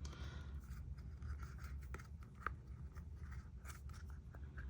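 Faint unboxing handling noises: light rubbing and scattered small clicks of plastic and packaging, with one sharper click about two and a half seconds in, over a low steady hum.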